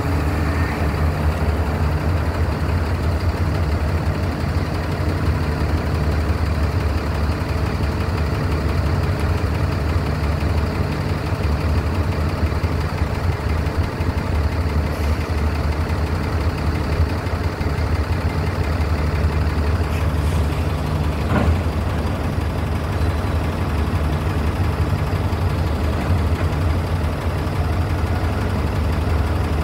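Steady low drone of heavy idling engines and cargo-handling machinery on a container terminal quay, with a single brief knock about two-thirds of the way through.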